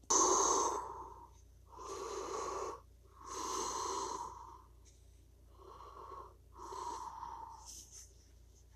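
A person breathing audibly in and out in a steady rhythm, one breathy gust about every second and a half.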